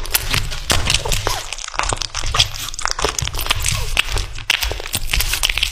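Kitten chewing and tearing at a raw chicken drumstick, a dense, irregular run of small clicks and crackles.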